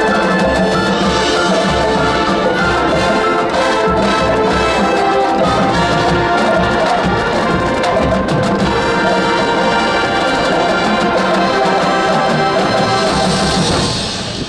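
High school marching band playing loud and sustained, with trumpets and trombones over drums; the music dies away near the end.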